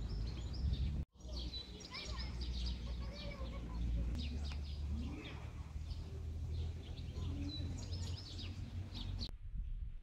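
Many small birds chirping and singing in the trees, with wind rumbling on the microphone underneath. The chirping stops abruptly near the end.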